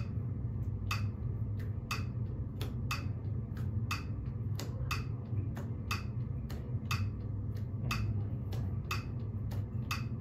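Metronome ticking steadily about once a second, with fainter clicks falling between the beats, over a steady low hum.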